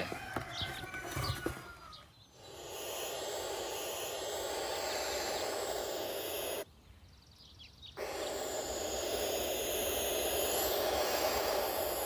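Four-week-old barn owl owlet giving its ghostly hissing food-begging call: two long hisses of about four seconds each, with a break of about a second between them.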